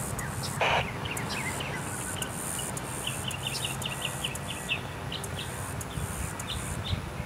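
Birds chirping in quick series of short calls and insects buzzing in a high, pulsing hiss, over a faint low drone. A short, louder burst of noise comes a little under a second in.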